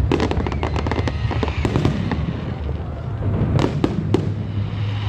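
Fireworks going off in rapid succession: many sharp crackling pops and louder bangs over a continuous low rumble, with a cluster of heavier bangs a little past halfway.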